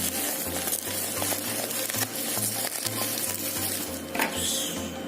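Plastic wrapping crinkling and rustling with small clicks as a phone's packaging is unwrapped by hand, over background music with a steady bass line.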